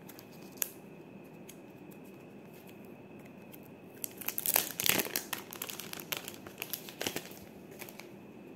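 Plastic packaging crinkling and rustling as hands handle it, with a single click about half a second in and the crinkling loudest from about four to seven seconds. A faint steady high whine runs underneath.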